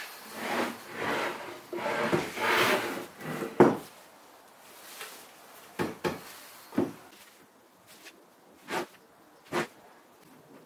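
Baltic birch plywood panels rubbing and scraping against each other as they are fitted together, ending in one sharp knock about three and a half seconds in. After it come several lighter wooden clicks and taps.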